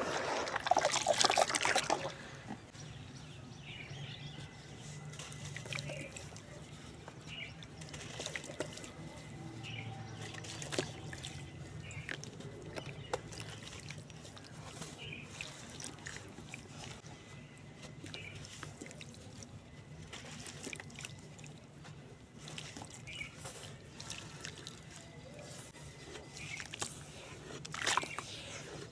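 Water-soaked cement sand crumbling and splashing into water in a clay pot, loudest for about the first two seconds. After that come softer trickling, drips and scattered small crackles.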